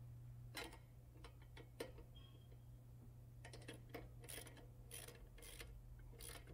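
Faint clicking of a socket ratchet and wrench tightening the motorcycle's lower shock mounting bolt: a few scattered clicks at first, then short quick runs of ratchet clicks in the second half.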